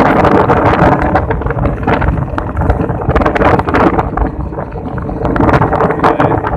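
Wind rushing and buffeting over the microphone of a camera carried on a moving scooter, with a faint steady hum underneath.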